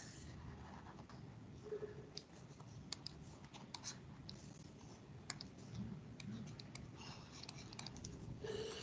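Faint, irregular clicks and taps from pen-drawing and writing on a computer, over low steady background hiss.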